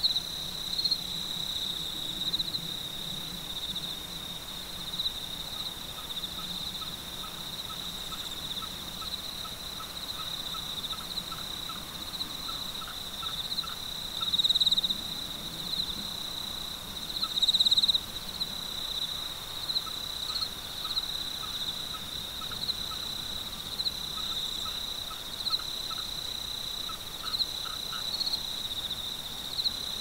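Evening chorus of insects singing in grass and fields: a steady high-pitched trill that swells louder twice near the middle. Under it, a lower-pitched caller repeats short chirps at about two a second, stopping and starting.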